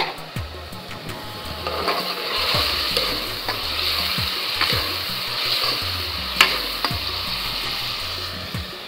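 Sliced onions and tomatoes frying in hot oil in a pot, sizzling as a metal spoon stirs them, with a few sharp clicks of the spoon against the pot. The sizzle swells about a second and a half in.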